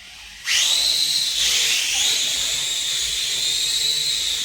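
Small drone's motors and propellers spinning up about half a second in with a quickly rising whine, then running as a steady high-pitched whine with hiss, wavering briefly once.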